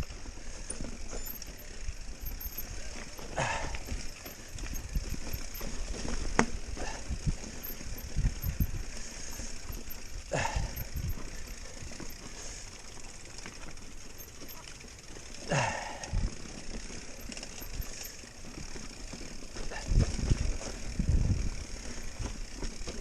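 Mountain bike ridden over a rough trail: tyre noise and uneven knocks and rattles from the bike, with a few brief falling squeaks.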